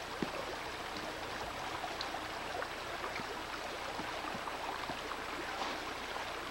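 Small woodland stream running, a steady even rush of water.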